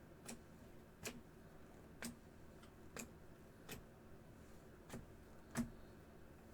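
Faint, short clicks or taps, about one a second at uneven spacing, with a slightly louder one near the end.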